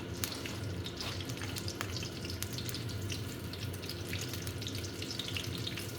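Butter melting in hot oil in a karahi, sizzling with a steady hiss and scattered small crackles.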